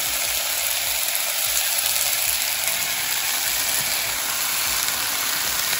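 Diced red potatoes sizzling steadily in olive oil in a frying pan.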